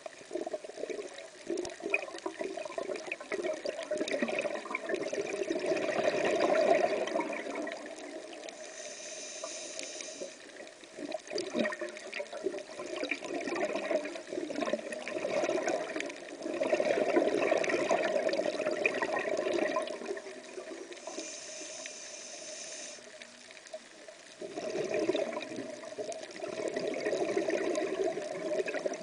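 Scuba diver breathing through a regulator underwater: long bursts of bubbling exhalation, broken twice by a short high hiss of inhalation.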